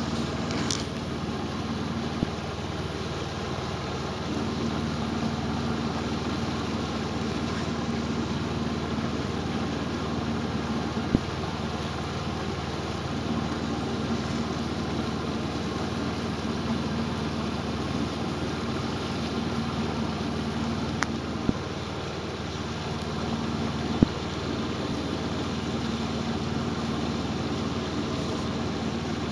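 Inboard engine of an Albin Vega 27 sailboat running steadily while motoring, a constant drone, with a few brief sharp clicks.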